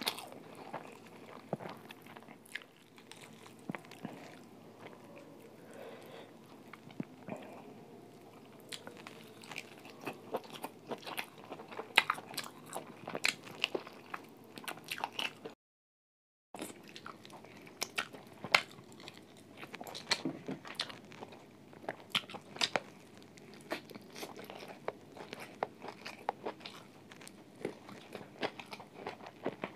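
Close-up eating sounds from a phone microphone: irregular biting, chewing and crisp crunches, with the sound cutting out completely for about a second midway.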